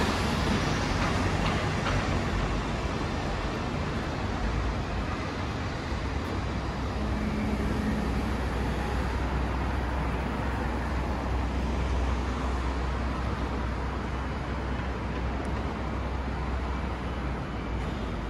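City street traffic noise: a steady wash of passing cars with a low engine rumble.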